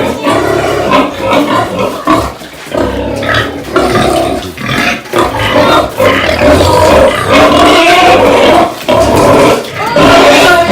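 Pigs calling loudly in short, irregular calls with brief pauses between them.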